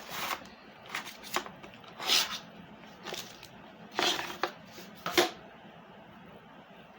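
Handling noises from a laptop charger being taken out and handled: a series of short clicks, knocks and rustles, stopping about five seconds in.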